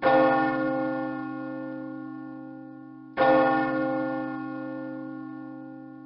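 Meneely church bell rung twice by rope, about three seconds apart, each stroke ringing on and slowly dying away.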